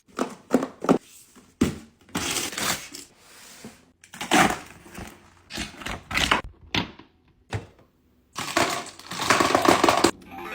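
Paper crinkling and rustling in short, irregular bursts, with clicks between them, as paper packaging is handled and opened.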